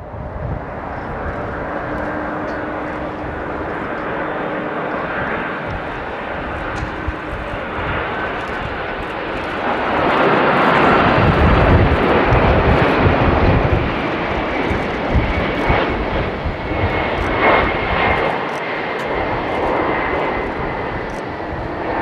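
Boeing 747-400 freighter's four jet engines on final approach: a steady rushing roar with a faint whine that slowly falls in pitch, growing loudest about ten to fourteen seconds in as the jet passes closest, then easing somewhat.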